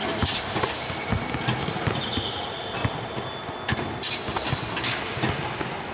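Basketballs bouncing and knocking on a hardwood gym floor in a large echoing hall, with a few sharp knocks and a short high squeal about two seconds in.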